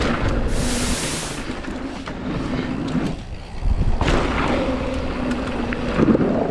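Mountain bike riding down a dirt trail: steady wind buffeting the microphone and tyres rolling over dirt, with a sharp hiss from about half a second in lasting roughly a second, like tyres skidding on loose gravel.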